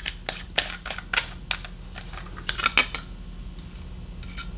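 Hands unpacking a soap dispenser from its packaging: a run of light clicks and crackles, most of them in the first three seconds, with a cluster a little before the three-second mark.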